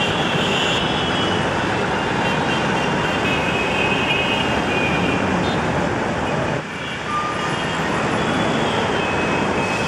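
Dense city traffic: a steady din of auto-rickshaw, truck, bus and car engines, with vehicle horns sounding now and then.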